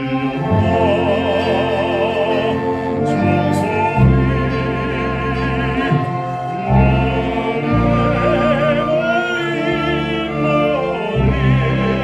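Baritone singing in an operatic style with wide vibrato, holding long notes over instrumental accompaniment.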